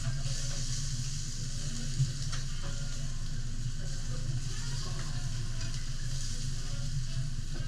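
Kobe beef steak sizzling steadily on a teppanyaki griddle while the chef cuts and turns it with a knife and spatula, over a steady low hum, with one sharp click about two seconds in.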